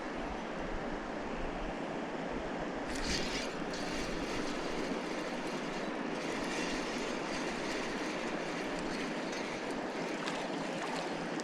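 Steady rush of river water flowing, with a brief louder hiss about three seconds in.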